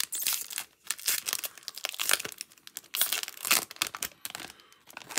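A foil booster-pack wrapper being torn open and crinkled by hand, in several irregular crackling bursts.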